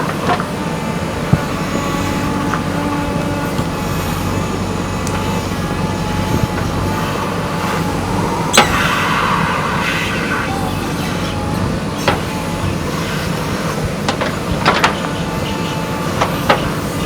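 JCB 3DX backhoe loader's diesel engine running steadily while working, with sharp knocks and clanks every few seconds, the loudest about eight seconds in.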